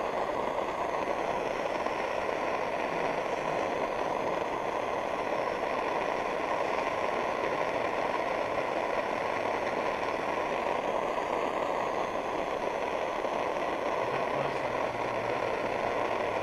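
A torch flame burning with a steady rushing noise as it heats a 9mm Luger cartridge, before the cartridge cooks off.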